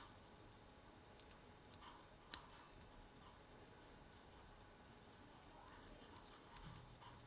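Near silence with faint, scattered small clicks and scratchy handling sounds, one sharper click about two seconds in. A faint low hum comes in near the end.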